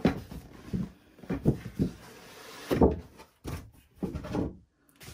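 Cardboard model-kit box being opened by hand: a run of knocks and thumps as the box is handled, with a scraping hiss as the lid slides off the base about two seconds in and the loudest bump just after.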